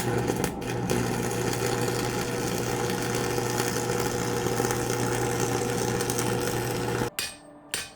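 Electric arc welder laying a weld bead: a steady crackling sizzle over a mains hum, stopping abruptly about seven seconds in when the arc is broken.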